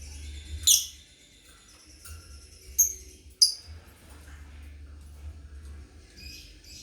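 Lovebirds chirping: three loud, shrill calls in the first half, then softer, quicker chatter.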